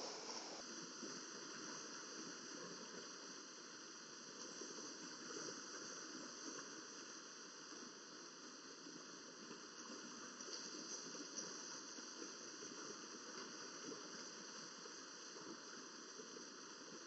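Steady faint hiss of background noise, with a faint click just after the start.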